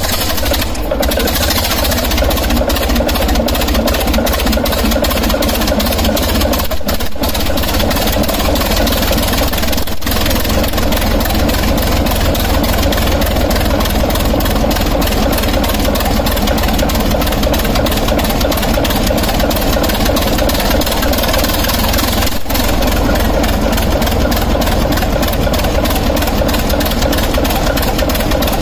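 Six-cylinder shunting-locomotive diesel engine running steadily with its exhaust manifold removed, each cylinder firing straight out of its open exhaust port in a rapid, even train of pulses. It is being run this way to check whether newly fitted experimental piston rings throw oil.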